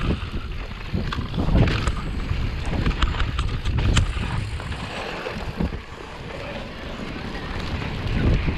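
Wind buffeting the microphone and tyres rolling over a dirt trail as an electric mountain bike descends, with its frame and parts rattling and knocking over bumps; sharp knocks come through, the loudest about four seconds in.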